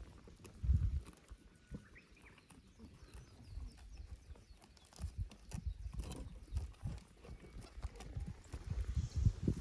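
Goat hooves thudding and clattering on a play structure's beam and slope, in irregular clusters of dull knocks about a second in, midway and again near the end.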